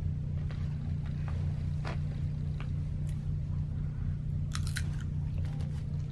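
A person chewing food close to the microphone, with scattered short crunches and clicks, a cluster of them about four and a half seconds in, over a steady low hum.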